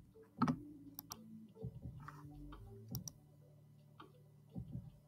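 A few sharp computer mouse clicks, two of them in quick succession about a second in, over a faint steady low hum.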